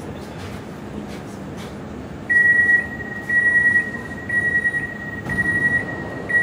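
Metro train door-closing warning beeps: a single high tone sounding about once a second, starting a bit over two seconds in, over the low hum of the train standing at the platform, signalling that the doors are about to shut.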